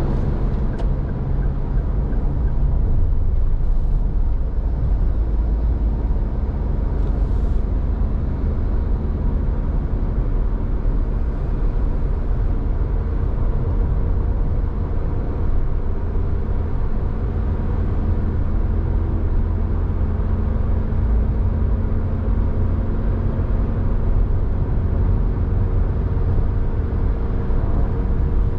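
Steady low rumble of a vehicle driving in road traffic: engine hum and road noise, even in level throughout.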